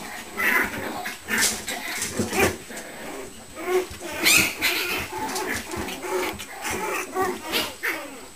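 Several young puppies yapping, squeaking and whining as they wrestle and play-fight, short calls one after another with scuffling, the loudest call about four seconds in.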